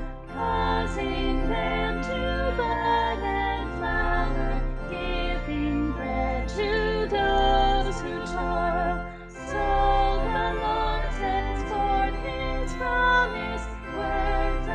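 A hymn sung with instrumental accompaniment, the voices carrying the verse words over steady bass notes, with a short breath between lines about nine seconds in.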